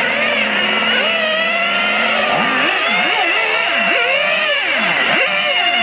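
Radio-controlled model touring cars racing, several at once, their motors whining in pitch that rises and falls quickly as they accelerate out of the corners and brake into them.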